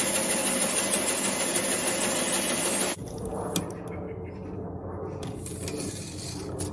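Electric sewing machine stitching steadily at speed, stopping abruptly about three seconds in. After that come quieter handling sounds with a few light clicks.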